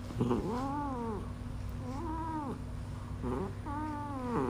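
British Shorthair cat making whiny, grumbling murmurs: three drawn-out calls, each rising and then falling in pitch, with short little sounds between them.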